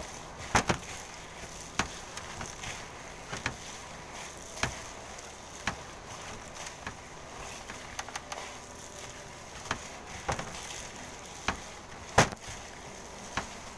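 Hands kneading and squeezing a ground-meat meatloaf mixture in a stainless steel bowl, with irregular sharp clicks and knocks about once a second as the bowl is worked; the loudest knocks come just after the start and about twelve seconds in.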